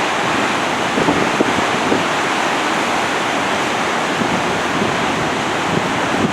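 Rough, storm-driven surf breaking, a steady roar of waves with strong wind.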